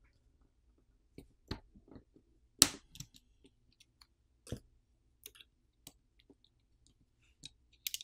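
Scattered sharp clicks and light taps of hand tools and small plastic parts as a smartphone's main board is worked free of a plastic catch and lifted out. The loudest click comes about two and a half seconds in.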